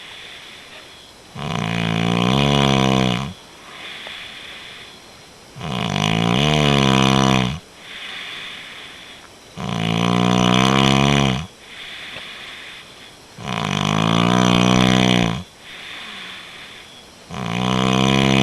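A man snoring heavily in his sleep: five loud, rasping snores about two seconds long, one every four seconds or so, with softer breaths between them.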